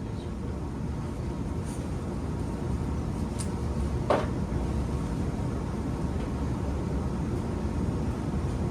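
Luxaire gas furnace running in heat mode: the blower and burners make a steady low rumble. One short knock about four seconds in.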